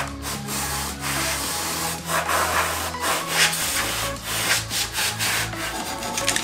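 Hand wire brush scrubbing rust and loose paint off the rusty steel frame and leaf spring of a Suzuki Jimny JA11, in repeated rasping strokes about one or two a second, with background music underneath.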